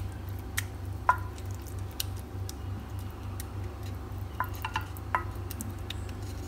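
Wooden spatula spreading a thick minced-meat sauce in a glass baking dish, with a few light clicks and taps of wood on glass over a steady low hum.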